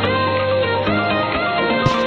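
Background music led by guitar, with sustained notes and sliding pitches.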